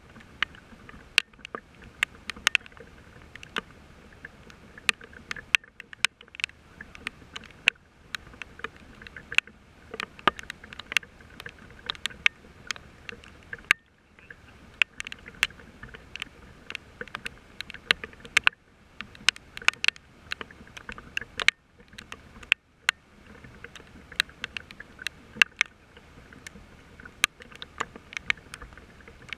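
Rain falling steadily, with large drops striking close to the microphone as sharp, irregular ticks several times a second over a constant hiss.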